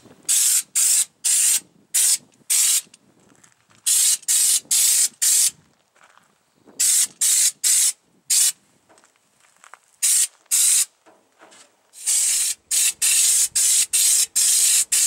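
Air-powered schutz spray gun spraying U-POL Raptor bedliner, giving short hissing bursts as the trigger is pulled again and again. The bursts come in quick runs with brief pauses between them, and they come thick and close together near the end.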